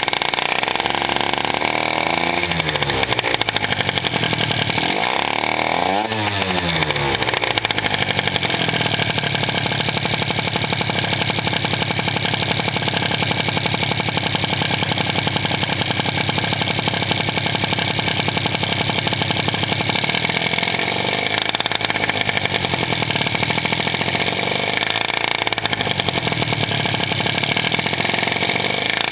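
Two-stroke Malaguti Firefox scooter engine breathing through a Polini Evo exhaust, revved in a few short throttle blips that rise and fall in pitch, with a long stretch of steady running in the middle.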